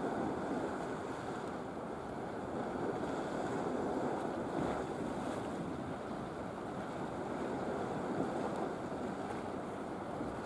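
Steady rushing of wind and choppy sea water, with some wind noise on the microphone.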